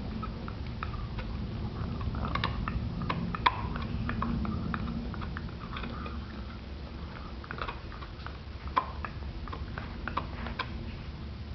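A Boston terrier gnawing a hard chew bone: irregular clicks and crunches of teeth on the bone, with two sharper snaps.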